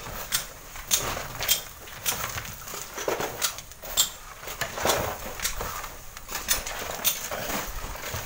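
Long bamboo poles scraping a sand cliff face, with stones and clods knocking as they tumble down: a run of irregular sharp clicks and knocks, roughly one or two a second, over a soft rustle of sliding sand.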